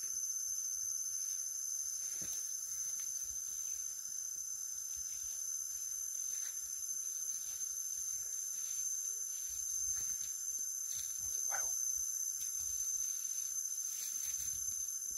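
Young mountain gorillas moving and wrestling in the grass: faint rustling and soft footfalls over a steady high-pitched insect drone, with one short rising call about eleven seconds in.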